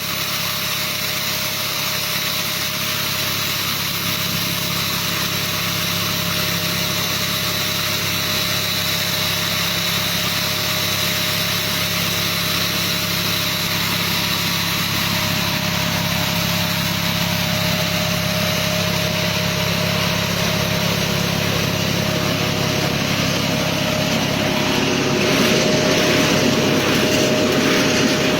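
Hasatsan H2200 hazelnut harvesting machine running steadily with a constant engine and fan hum, growing louder and rougher about three-quarters of the way through.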